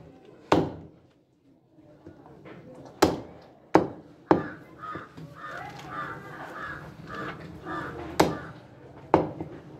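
Heavy meat cleaver chopping goat meat on a wooden chopping block: about six sharp chops, irregularly spaced. In the middle a bird calls repeatedly in the background.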